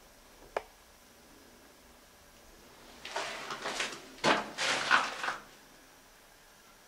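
A single sharp click, then about two and a half seconds of rustling and clattering with two louder knocks, like something being handled or moved about.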